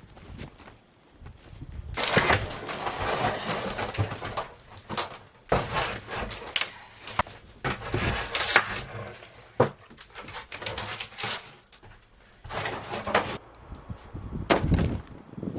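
Demolition work inside a caravan: irregular scraping and crunching of panels and wood being pried and broken away, with sharp cracks and knocks throughout. The clatter pauses near the end, then comes back in two short bursts.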